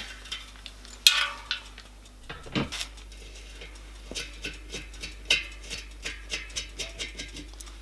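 Metal clinks and knocks of hand work on a bicycle wheel's hub and spokes: a sharp clink about a second in and a duller knock a moment later, then a run of light metallic ticks about three a second.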